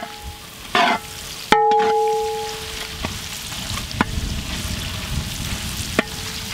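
Steel spatula stirring garlic, ginger and green chillies frying in oil in a large metal uruli, with a steady sizzle. A scrape near the start, then a sharp knock of the spatula against the pot about a second and a half in that leaves the pot ringing for over a second, and two lighter knocks later.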